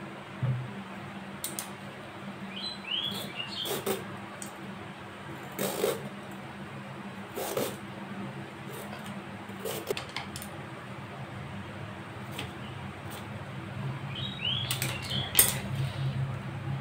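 Hand peeler scraping and clicking against the skin of a bottle gourd in short, separate strokes, over a steady low hum. A few short high chirps come about three seconds in and again near the end.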